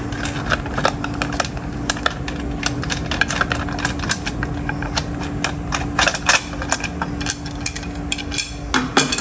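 Scrench socket turning the bar nuts off a Stihl chainsaw: irregular small metal clicks and clinks, several a second, over a steady low hum.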